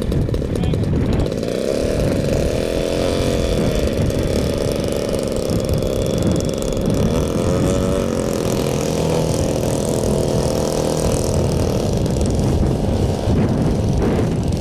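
Engine of a giant-scale radio-controlled model Fokker D.VII biplane running while it taxis across grass, its pitch rising and falling a few times as the throttle is worked.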